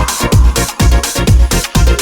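Electronic dance music with a heavy, steady kick drum, about two beats a second.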